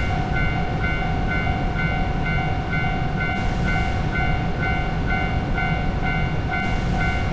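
A train passing a Japanese level crossing with a steady rumble and hiss, while the crossing's warning bell keeps ringing its rapid kan-kan, about three strikes a second.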